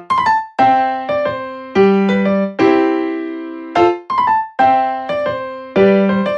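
Background music: a light keyboard piece of piano notes and chords, each struck and fading, in an easy, unhurried rhythm.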